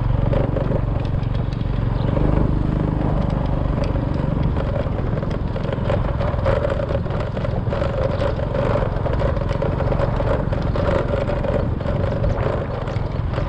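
Small motorcycle engine running at a steady pace while riding a rough dirt track, with a steady hum and frequent rattles and knocks from the bumpy ground.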